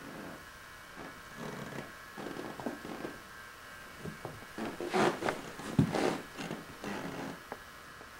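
Irregular scuffling, rustling and a few thumps of movement on rugs and a wooden floor as a kitten plays with a string toy, busiest and loudest a little past the middle, with one sharp thump. A steady faint hum lies underneath.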